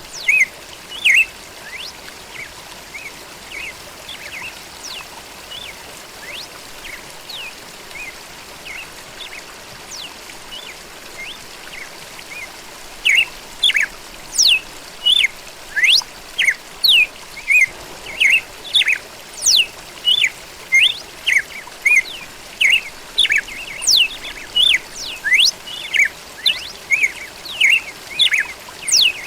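Red-cowled cardinal (galo-da-campina) singing, over a steady background hiss. At first there are only sparse, soft chirps. Just under halfway through it breaks into a quick run of loud, sweeping notes, about two a second.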